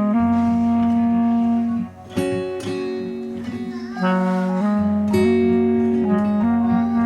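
Background music led by acoustic guitar, with chords changing about once a second and a brief drop in level about two seconds in.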